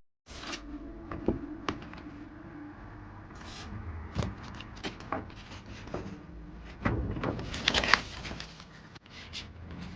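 Close-up handling of photocards and plastic packaging: scattered taps and clicks, with a burst of plastic crinkling about seven to eight seconds in.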